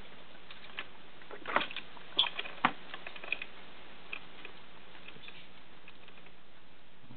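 Light taps, clicks and scuffles of a pet rainbow lorikeet tussling with a hand on a wooden desk and perch ladder, a quick cluster of louder clicks about two seconds in, then a few scattered ticks.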